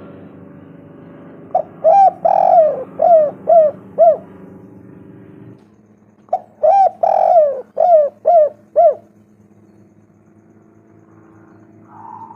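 Spotted dove cooing: two calls, each a short coo, a longer coo, then four quick coos. The second call starts about five seconds after the first.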